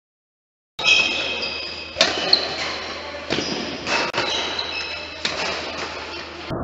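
Badminton rally on an indoor court: sharp racket strikes on the shuttlecock, irregularly spaced about a second apart, with short high squeaks of shoes on the court surface. The sound starts abruptly about a second in.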